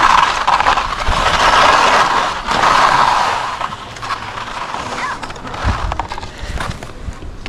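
Skis scraping over thin, hard-packed snow, a loud steady scrape for about the first three seconds, then quieter with scattered clicks and knocks as the skis chatter over the uneven strip.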